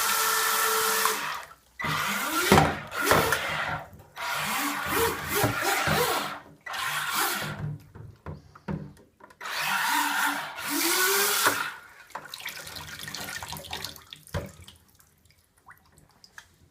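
Small brushless outrunner motor (Hacker A10-12S) driving a 3D-printed micro jet drive, throttled up in repeated short bursts: each burst opens with a rising whine and cuts off, with rushing, splashing water throughout. The bursts grow sparser after about twelve seconds and die away near the end.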